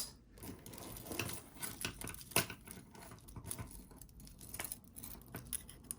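Costume jewelry being handled and sorted by hand: small irregular clicks and clinks of metal and plastic pieces knocking together, one a little louder about halfway through.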